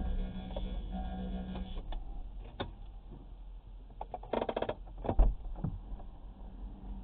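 Low steady hum inside a stationary car, with scattered sharp clicks and a short, dense burst of noise about four seconds in.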